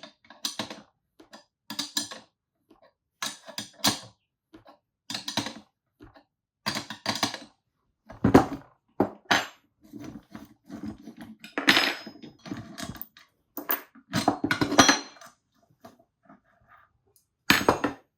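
Irregular metallic clinks and clanks of steel tools and press parts being handled as a swingarm bearing is pressed into an aluminium swingarm with a plate and socket.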